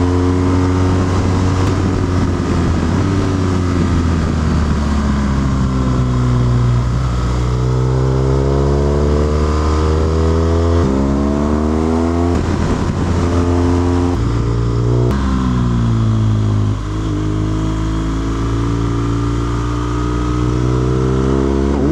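BMW R1200GS boxer-twin engine under way, its revs rising and falling again and again as the bike accelerates, shifts and eases off, with a few abrupt steps in pitch. Wind rush over the microphone runs underneath.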